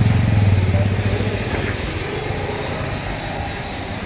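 A motor vehicle engine running nearby, a low, even throb that fades out about a second in and leaves a steady hum of street traffic.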